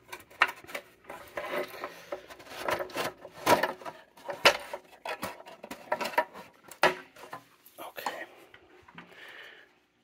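Hands handling the sheet-metal body of a 1909 Hoover Model O vacuum cleaner: scattered clicks and knocks with rubbing of metal between them, fading near the end.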